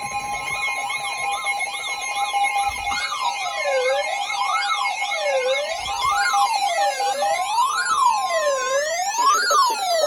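Emergency alert attention signal: steady electronic alert tones layered with synthesized siren wails. The siren starts as a fast warble, then slows to long wails rising and falling about every second and a half, and the steady tones drop out in the second half. It announces an emergency alert, here a flash flood warning.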